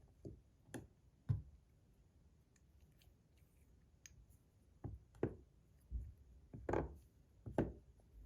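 Metal fidget spinner parts being taken apart and set down by hand: scattered light clicks and knocks at irregular intervals, a few early, a pause in the middle, then a run of them in the second half.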